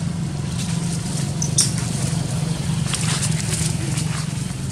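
Dry leaves rustling and crackling in short bursts as macaques scamper and scuffle over leaf-strewn ground, with the sharpest crackle about a second and a half in, over a steady low hum.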